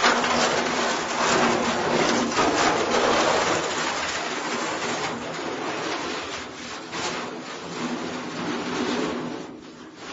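Metal crash with a long rumble of clattering, scraping steel and falling debris, loudest right at the start and slowly dying down toward the end.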